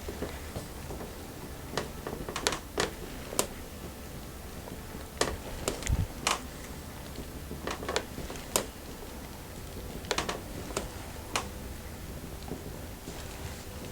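Hands working during a massage: irregular light clicks and taps, about a dozen, scattered in small clusters over a low steady background.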